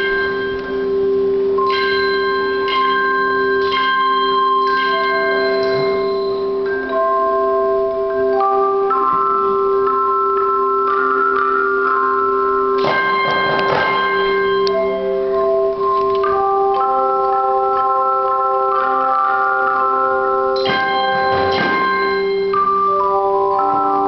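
Music from handchimes: bell-like struck notes that ring on, forming a slow melody over long held tones, with a few louder strikes that ring out.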